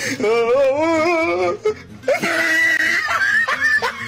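A voice wailing with a wobbling pitch for about a second and a half. It is followed by a long, high-pitched, scream-like cry.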